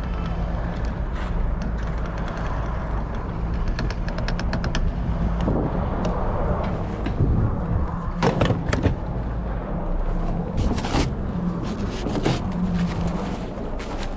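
A car running steadily, with a quick run of fine clicks about four seconds in and several sharp knocks around eight and eleven seconds.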